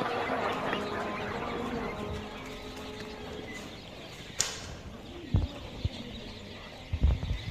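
A flock of quails chirping and calling, busiest in the first couple of seconds, then thinner, with a sharp click a little past the middle and a few low knocks near the end.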